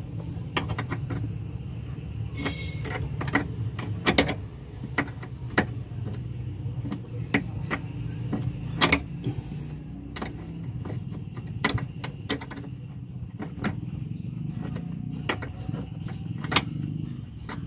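Irregular metallic clicks and knocks of hand tools and parts being handled during clutch hydraulic work on the van, a few louder knocks among them, over a steady low hum.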